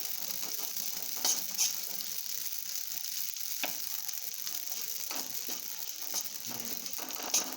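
Ajwain seeds, cloves and crushed garlic dry-roasting in a pan: a steady sizzle with scattered sharp crackles. This crackling is the sign that the roasting is done and the gas is to be turned off.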